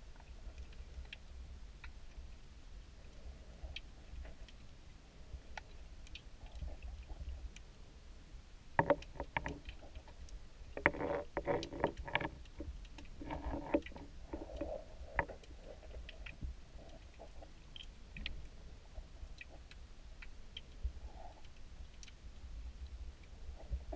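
Muffled underwater ambience picked up by a camera in a waterproof housing: a steady low rumble of moving water with scattered faint clicks. A few louder bursts of noise come between about a third and halfway through.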